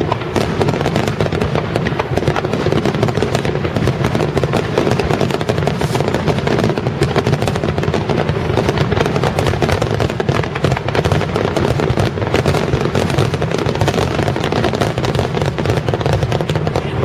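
Firework finale barrage: a continuous, dense rapid fire of aerial shell bursts and star-mine launches, the booms running into one another over a steady low rumble.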